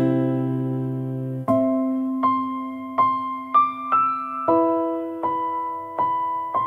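Background music: a slow, gentle electric piano melody, single notes struck about every three-quarters of a second over a held chord.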